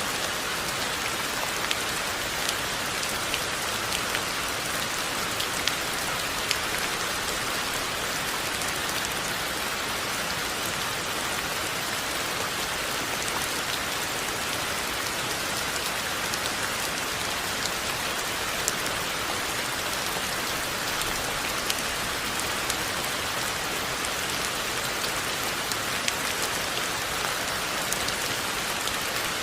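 Steady rain falling, a continuous even hiss with scattered sharper drop hits.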